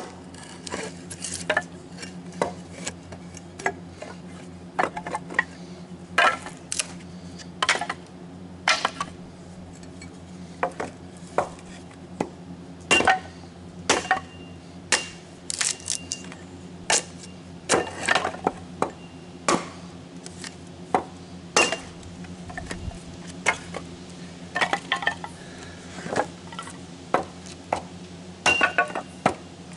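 Wood being chopped into kindling: sharp chops at uneven intervals, one or two a second, some with a brief metallic ring, over a steady low hum.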